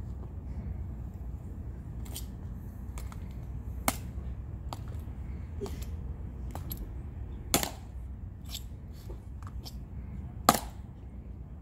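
Metal-tapped dress shoes of two Tomb of the Unknowns guards clicking on the stone plaza as they step, turn and halt: irregular sharp clicks about once a second, two of them louder, the second near the end. A low rumble of wind on the microphone runs underneath.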